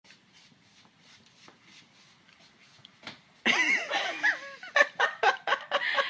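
A few faint light ticks and scrapes, then about three and a half seconds in a person bursts out laughing loudly, the laughter coming in short rhythmic bursts.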